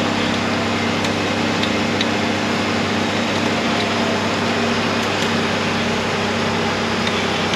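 Jeep Cherokee's engine running at steady revs as it crawls through deep mud.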